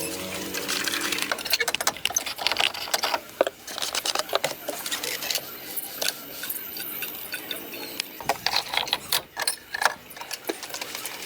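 Hand tools clicking and knocking in a rapid, irregular run.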